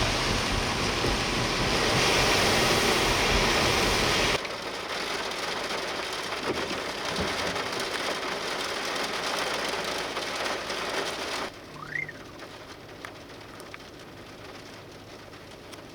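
Steady hiss of heavy rain, dropping abruptly to a quieter rain hiss about four seconds in and quieter still past the middle, with a brief rising whistle near the end.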